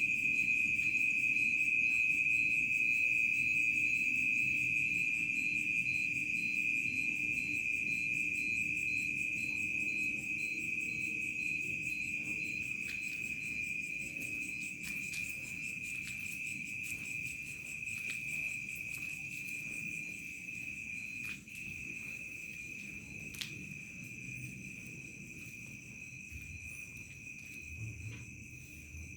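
Crickets chirring in one steady, unbroken high trill, with fainter insect tones higher still. The chorus slowly grows fainter.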